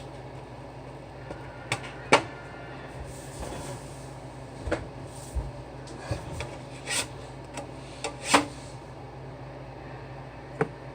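Kitchen utensils and cookware handled while making pancakes: a few scattered knocks and clicks with soft scraping, over a steady low hum.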